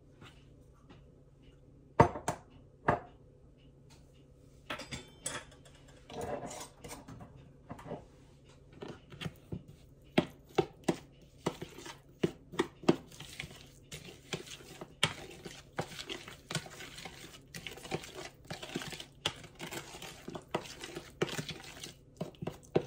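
A metal spoon tapping, clinking and scraping against a mixing bowl while stirring thick pumpkin pie filling. Two sharp taps come about two and three seconds in, then a quick run of clinks and scrapes.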